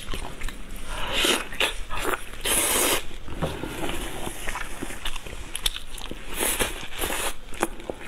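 Close-miked eating of a big chunk of cooked meat: wet chewing, lip smacks and quick clicks of biting and tearing, with a few louder hissing stretches.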